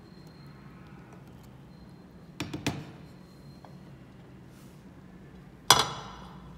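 Cookware clatter at a stainless-steel pot: two quick knocks about two and a half seconds in, then one sharp clank that rings briefly near the end, the loudest sound here. A low, steady hum sits underneath.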